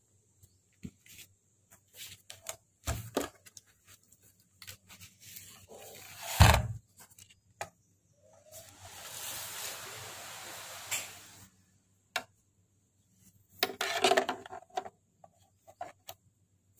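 Handling noise from a car stereo's wiring harness and cables being moved about: scattered clicks and rubs of wires and plastic plugs, a loud thump about six seconds in, a few seconds of steady rustling in the middle, and another burst of rustle and clatter near the end.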